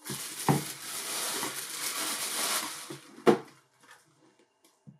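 Tissue paper rustling as a canvas sneaker is handled out of its shoebox, with a dull thud about half a second in. A sharp knock, the loudest sound, comes a little after three seconds, then only a few faint clicks.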